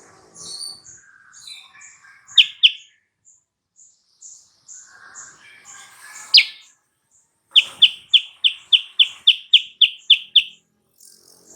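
Silver-eared mesia (kutilang sutra) singing: a few sharp, loud chirps, then a fast run of about a dozen loud notes at roughly four a second. Softer, evenly repeated high peeps sound in the background.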